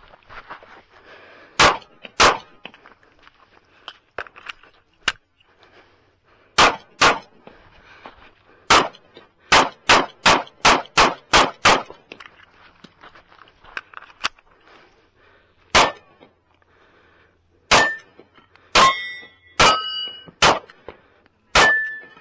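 Sig Sauer P365 9mm pistol fired in pairs and strings, including a fast run of about seven shots about ten seconds in. In the last few seconds, steel targets ring briefly after hits.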